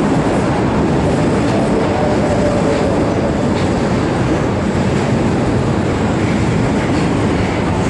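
Osaka Midosuji Line subway train pulling into the platform, its cars rolling past close by with a steady, loud noise of wheels on the rails.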